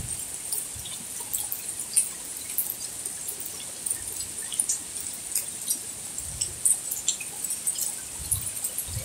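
Rain falling steadily on garden plants and wet paving, with many irregular sharp drips and splashes over a constant hiss.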